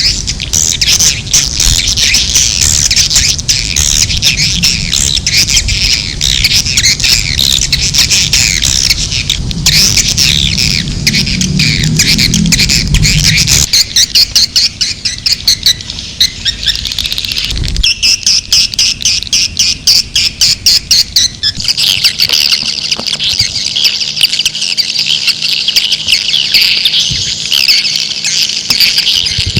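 Recorded swiftlet calling sound: a dense flock of swiftlets twittering and chirping, the kind of call played to lure swiftlets into a nesting house. About halfway through, the calls turn into a fast, pulsing chatter for several seconds, then go back to continuous twittering.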